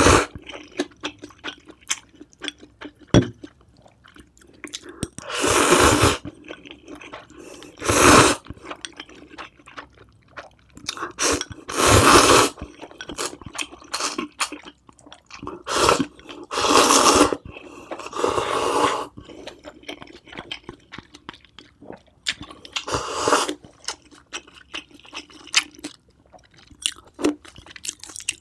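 Close-miked eating: wet chewing clicks throughout, broken by about seven loud slurps of cheese ramen noodles and broth.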